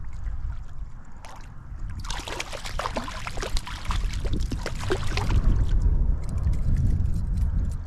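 Strong wind rumbling and buffeting on the microphone, with water splashing and dribbling for a few seconds around the middle.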